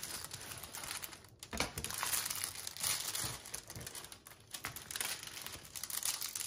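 Diamond painting canvas with its plastic cover film crinkling as hands press and smooth it, working the corners flat.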